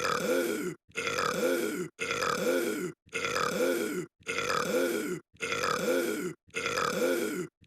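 A single drawn-out burp repeated over and over, the same burp each time, about once a second with a short silent break between, seven times.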